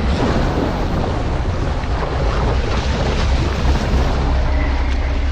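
Boat underway: a steady low engine drone with water rushing past the hull, under heavy wind buffeting the microphone.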